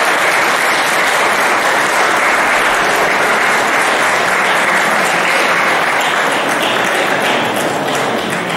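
Audience applauding: steady, dense clapping from many hands that begins to break up into separate claps near the end.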